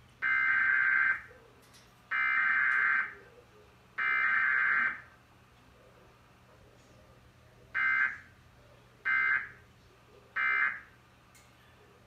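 Emergency Alert System SAME data bursts played through a TV speaker: three harsh, buzzy digital bursts of about a second each, two seconds apart, carrying the test's header. They are followed by three shorter bursts, the end-of-message code. There is no attention tone or voice message, as is usual for a Required Weekly Test.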